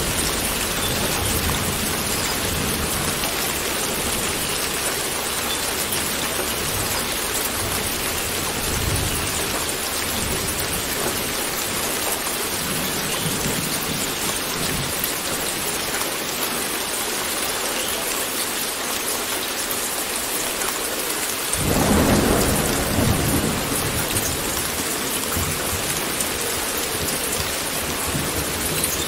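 Steady heavy rain hissing, with thunder rumbling low in the background. About three-quarters of the way in a loud thunderclap breaks and rolls off over a few seconds.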